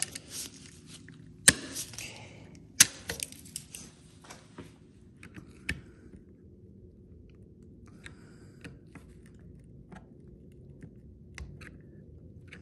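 Hand tools clicking and clinking against a chrome-plated Porsche Recaro seat hinge as locking pliers pinch its tabs and a screwdriver is worked by the hinge shaft. Two sharp metallic snaps come about one and a half and about three seconds in, then only scattered faint taps.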